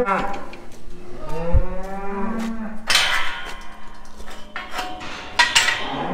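Beef cows mooing, several long low calls, with sharp metallic clanks from galvanised steel pen gates in the second half.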